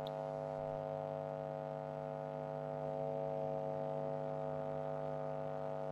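A steady hum with a stack of overtones, unchanging in pitch and level.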